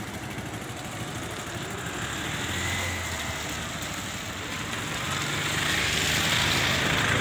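Motorbike engines passing on a road bridge, over the steady rush of a flooded river. The sound grows louder about five seconds in.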